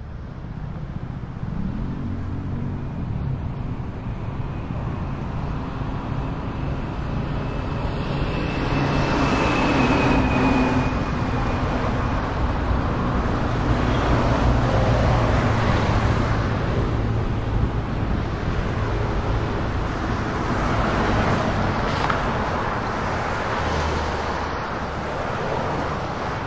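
Road traffic going by: a steady rush with a low engine rumble that swells and fades several times as vehicles pass.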